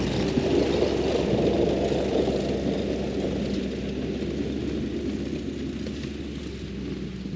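Snowmobile engine running steadily as it pulls away, towing a toboggan loaded with lumber. The sound is loudest at the start and fades gradually as the machine moves off.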